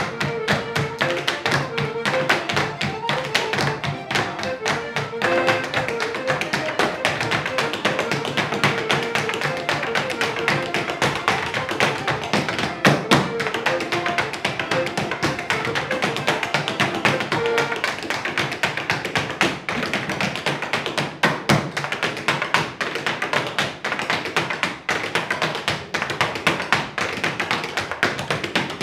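Sean-nós dancers' hard shoes tapping and stamping out fast rhythmic steps on the floor, to an accordion playing an Irish dance tune. The accordion drops out past the middle, leaving mostly the steps.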